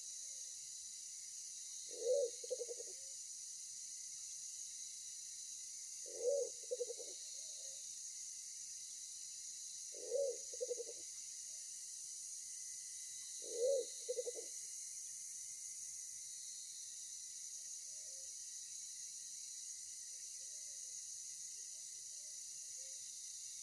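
A pigeon giving a deep, pulsing two-part coo four times, about every four seconds, with a few fainter notes afterwards, over a steady high hiss of insects.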